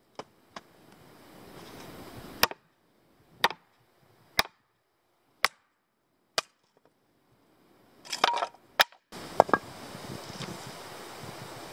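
Hatchet splitting kindling on a log chopping block: sharp wooden knocks about once a second as the blade, with a board stuck on it, is brought down onto the block, with a quick flurry of strikes near the end. After that a steady outdoor hiss with a couple of small wooden clicks.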